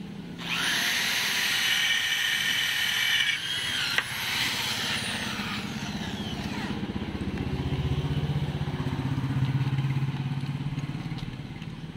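Corded electric drill running at high speed with its bit boring into steel angle bar: a loud, high-pitched whine that cuts off a few seconds in, then the motor winding down with falling pitch. A lower steady rumble follows near the end.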